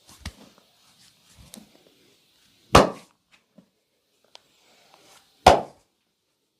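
Two loud, sharp impacts from a hands-on massage and chiropractic session, about two and a half seconds apart, with faint rustling and small clicks between them.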